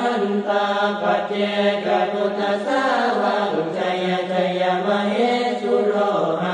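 Group of Buddhist monks chanting Pali verses in unison, the pitch held mostly level with small steps up and down.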